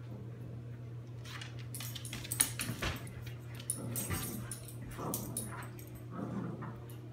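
Golden retriever and puppy tussling over a toy: claws scrabbling and clicking on the hardwood floor, with a sharp knock about two and a half seconds in and short whines from the dogs near the end.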